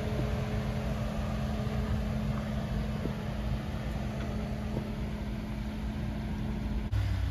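Suzuki Jimny's engine running steadily at low revs as the 4x4 crawls through a muddy rut. Near the end the sound switches abruptly to a louder, deeper engine hum.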